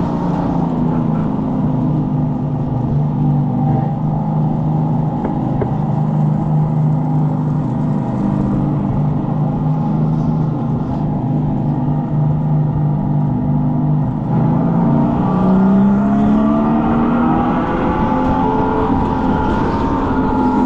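Electric go-kart's simulated engine sound, a steady pitched hum over a low rumble. About fifteen seconds in, its pitch rises and then holds higher.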